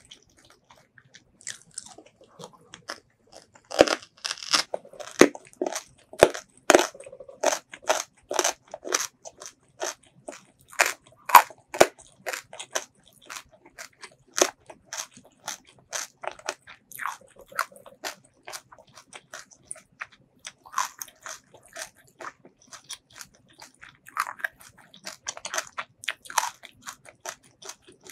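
Close-miked chewing with sharp, crisp crunches several times a second. The crunching is densest and loudest from about four to twelve seconds in, slows to sparser chews, then picks up again near the end.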